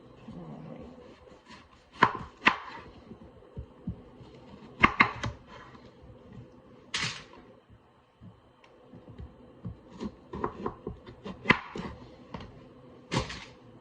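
Kitchen knife cutting potatoes into wedges on a cutting board: irregular sharp chops and knocks, sometimes two in quick succession, with pauses of a second or more between them.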